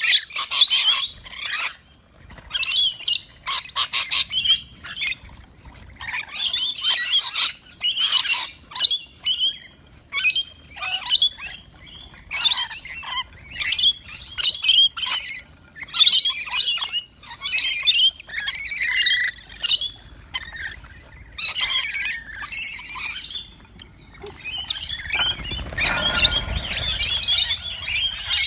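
A bird chirping and squawking in quick, repeated bursts of high calls. A rustling noise rises under the calls near the end.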